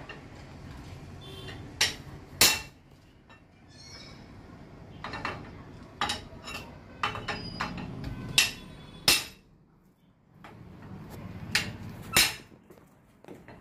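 Hammer striking the steel parts of a submersible pump motor being dismantled: about ten sharp, irregularly spaced metal clanks, some with a short metallic ring.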